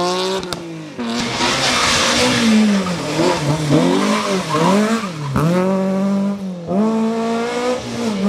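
Rally car engine at high revs: it climbs, cuts sharply at a gear change, then dips and rises several times in quick succession through a run of downshifts and throttle lifts before pulling hard again. A hiss of tyre noise runs under it.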